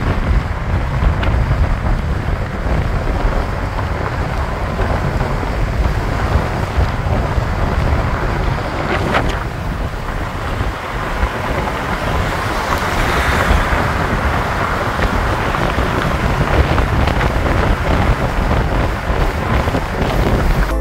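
Wind buffeting the microphone over the steady noise of a moving vehicle.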